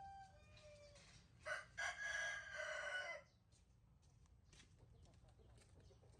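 Rooster crowing once: a long call that starts about a second and a half in and lasts under two seconds. A few fainter short calls come just before it.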